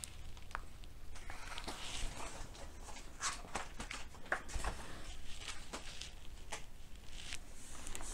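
A picture book's paper page being turned by hand, rustling with a string of soft crackles and taps, then the hand smoothing the new spread flat near the end.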